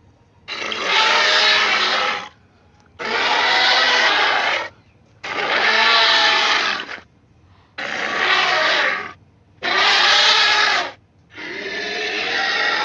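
Allosaurus roar sound effects: a series of six rough, growling roars, each one to two seconds long, with short silent pauses between them. The last one starts near the end and is longer.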